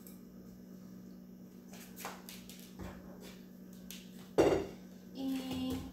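Kitchen knife work while pitting an avocado: a few light clicks, then one sharp knock about four and a half seconds in as the knife holding the pit strikes a hard surface, followed by a short pitched sound.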